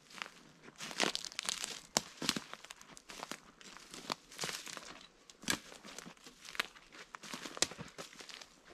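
Footsteps crunching over the dry needles, twigs and leaf litter of a pine forest floor, with sharper crackles roughly once a second as each step lands.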